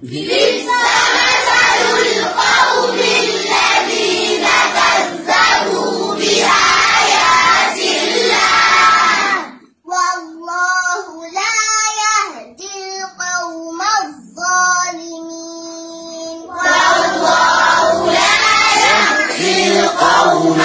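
A little girl reciting the Holy Quran in a melodic chant. Her voice breaks off briefly about ten seconds in, then continues as a clear single line before the sound grows fuller again near the end.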